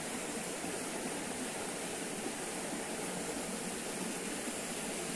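Steady rush of flowing stream water, an even hiss that does not change.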